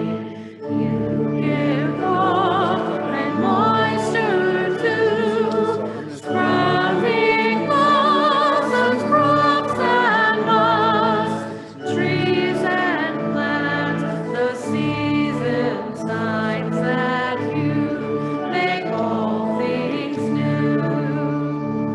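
A hymn verse sung with vibrato over steady, sustained instrumental accompaniment, line by line, with short breaks between phrases about 6 and 12 seconds in.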